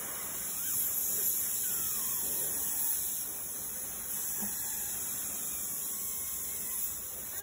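Paint spray gun hissing steadily as it sprays paint onto a goose mount's feet.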